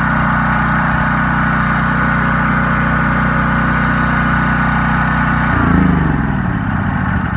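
Champion 100297 dual-fuel portable generator running steadily on gasoline, then shut off about five and a half seconds in, its engine note sweeping down as it winds to a stop.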